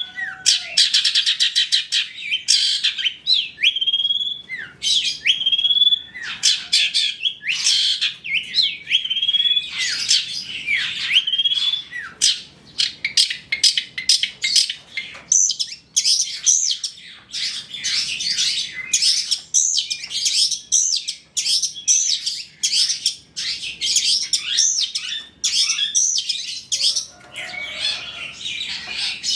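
Long-tailed shrike (cendet) singing a busy song full of mimicked phrases. It opens with fast rattling note trains and short rising whistles, then turns about halfway into dense, high twittering and chattering.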